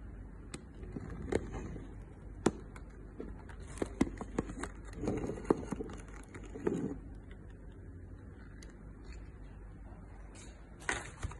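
Handling noise: irregular sharp clicks and taps with short bursts of rustling as plastic items are moved about in a tub of water gel beads. There are two more clicks near the end.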